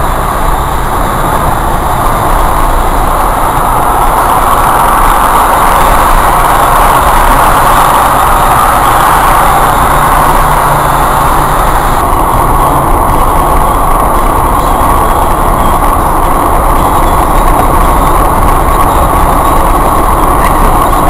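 Steady road noise of a car driving, heard from inside the cabin through a windshield dashcam's microphone: a continuous hiss and rumble of tyres, wind and engine. The tone changes abruptly about twelve seconds in, where the footage cuts to another drive.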